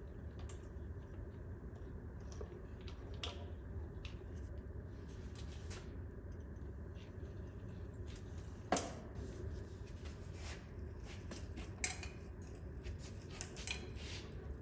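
Sparse metallic clinks and knocks of hand tools and parts during transmission removal, with a sharper metal clank about nine seconds in and another near twelve seconds, over a faint steady hum.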